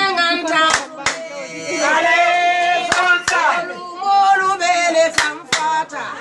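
A woman singing in long held notes, with sharp hand claps that come in pairs, three pairs in all.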